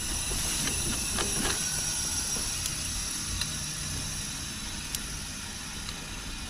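Steady hiss of refrigerant rushing through the service valve into the evacuated air-conditioner system as charging begins, easing slightly as it goes, with a few faint ticks.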